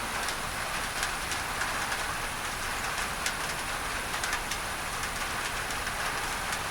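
Rain falling on a tin roof, blended with a pink-noise tinnitus-masking layer: a steady, even hiss dotted with many sharp, irregular drop ticks.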